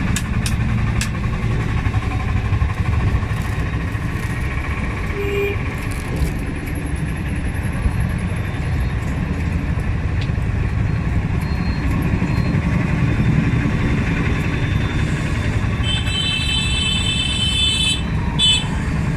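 Road traffic running by with a steady low rumble. A vehicle horn sounds for about two seconds near the end.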